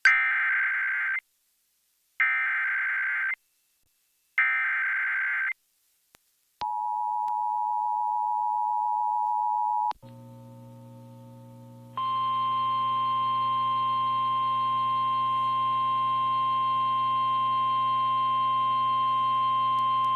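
Emergency Alert System header: three bursts of warbling digital data about two seconds apart, then a short two-tone attention signal. After a low hum, a loud, steady, buzzy alert tone starts about twelve seconds in.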